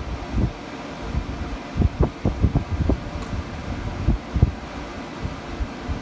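Irregular low rumbles of wind buffeting the microphone over a faint steady hiss.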